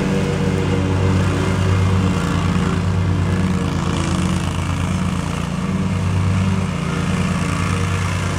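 Kohler 30 HP gas engine of a 2006 Hustler Super Z zero-turn mower running steadily while the mower drives and turns.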